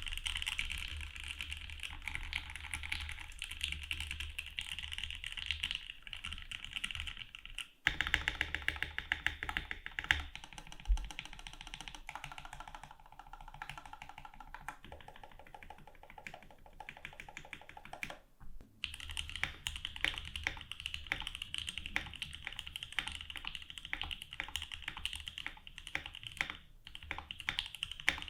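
Fast, continuous typing on a 60% mechanical keyboard with JWK Durock L3 linear switches, lubed with Krytox 205g0 and filmed, in a FB60 case: a dense stream of keystroke clacks, broken by brief pauses about 8 and 18 seconds in.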